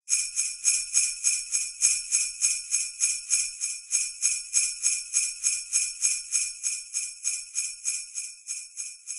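Jingle bells shaken in a steady rhythm, about three shakes a second, growing slightly fainter toward the end.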